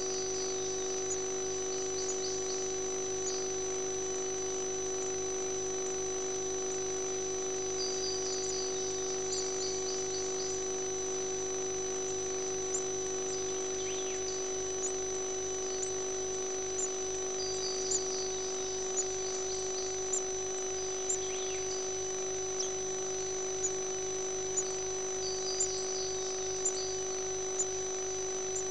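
Steady electrical hum from the nest-box camera, with a few clusters of faint high bird chirps. From about halfway on, short high peeps come about once a second.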